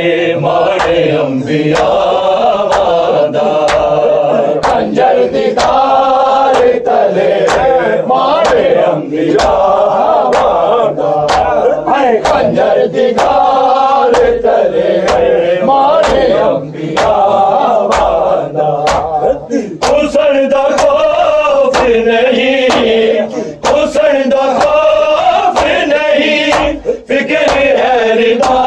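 Men chanting an Urdu nauha, a mourning lament, with sharp rhythmic beats about twice a second keeping time: the chest-beating of matam.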